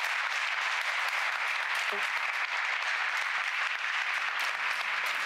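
An audience applauding steadily, a dense even clapping that holds for the whole stretch.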